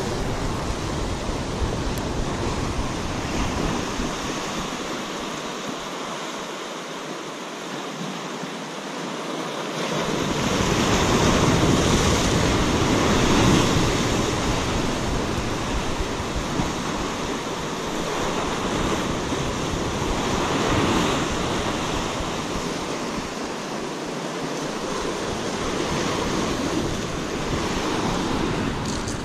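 Sea surf breaking and washing over shore rocks, swelling and easing in several surges, loudest about a third of the way in. Wind buffets the microphone, with a low rumble that drops out for a few seconds at times.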